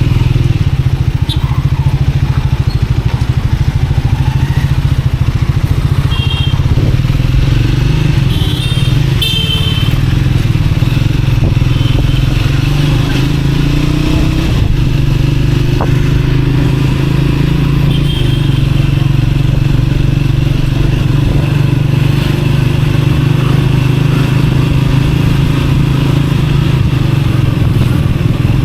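Triumph Speed 400's single-cylinder engine running steadily as the motorcycle is ridden through city traffic. A few short high-pitched beeps come and go over it.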